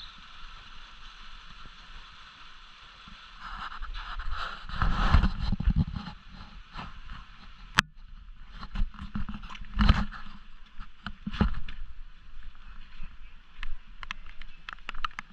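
Rain falling steadily with scattered drop clicks. A few loud low rumbles about five and ten seconds in.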